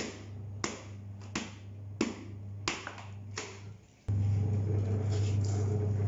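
Wet cotton clothes beaten with a wooden washing paddle (thapa) on a floor: sharp slapping strikes about every two-thirds of a second, six in all, over a faint low hum. About four seconds in, the strikes stop and a louder steady low hum takes over.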